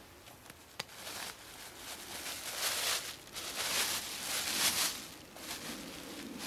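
Plastic garbage-bag liner rustling and crackling in several bursts as it is handled and pulled open inside a backpack, with a single sharp click just under a second in.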